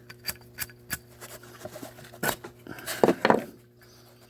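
Small metallic clicks and taps from handling a solid copper Zippo lighter, with a louder cluster of clacks about three seconds in.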